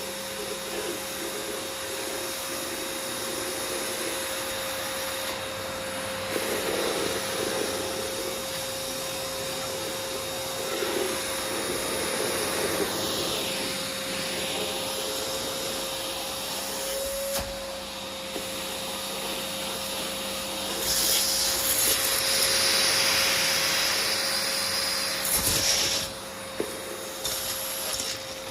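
Household vacuum cleaner running, its motor holding a steady whine under the rushing of suction as the nozzle moves across surfaces. Louder and hissier for several seconds past the middle, then it drops off suddenly.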